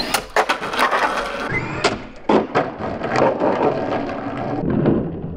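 Brushless 1/10 rear-wheel-drive RC monster truck launching and running away over tarmac, with a run of irregular sharp knocks and crackles as it bounces along.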